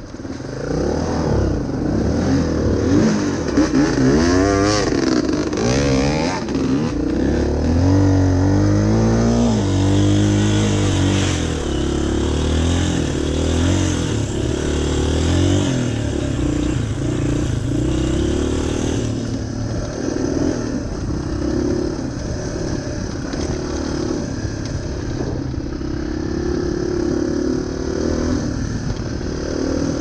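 Yamaha Serow 225's air-cooled single-cylinder four-stroke engine under changing throttle on a dirt bike, its pitch rising and falling again and again in the first ten seconds or so, then running steadier at a lower pitch.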